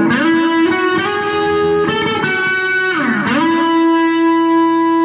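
Instrumental music: an electric guitar with effects plays a slow melody of long, sustained notes.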